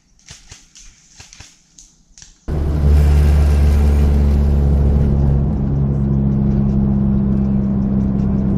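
Faint scattered ticks and rustles, then about two and a half seconds in a sudden jump to loud, steady car engine and road noise heard from inside the cabin while driving, with a low drone underneath.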